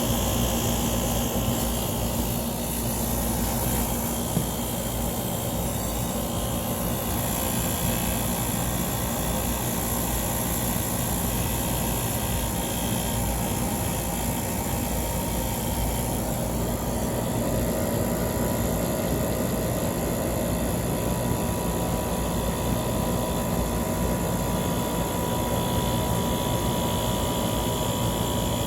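Small ceiling-mounted HVAC unit running after its start delay: a steady mechanical drone of compressor and fan with a low hum and airy hiss. A higher steady tone joins about halfway through.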